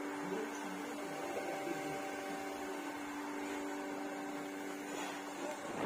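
A steady low hum made of several held tones, like an electrical appliance or mains hum. Right at the end a loud rush of wind-like noise starts to rise.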